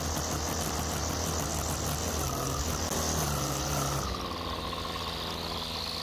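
Husqvarna gas string trimmer engine running steadily at speed. About four seconds in its pitch falls and the high whine drops as the throttle eases off.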